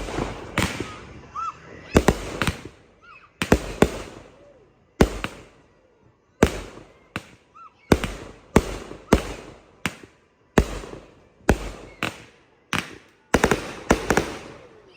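Fireworks going off in a rapid series of sharp bangs, about one every half second to a second, each followed by a short crackling hiss as it dies away.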